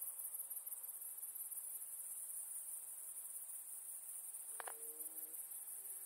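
Crickets in the long grass, a steady high-pitched shrill with a fine rapid pulse. A brief lower, tonal sound comes in once, about four and a half seconds in.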